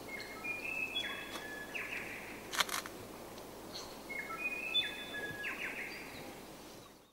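A bird singing two phrases, each a quick run of clear notes stepping down in pitch, over a steady outdoor hiss. A single sharp click comes about two and a half seconds in, and the sound fades out near the end.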